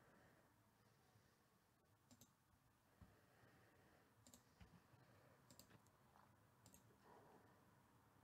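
Near silence, with a few faint computer mouse clicks scattered through it, some of them in quick pairs.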